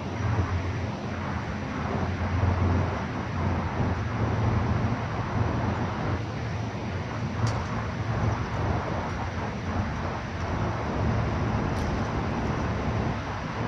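Steady outdoor background rumble, with a faint sharp click about seven and a half seconds in and another near twelve seconds.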